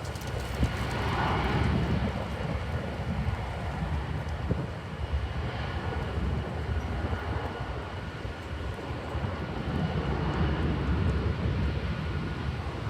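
Jet airliner engines: a steady rumble with a faint high whine, swelling in loudness a couple of times.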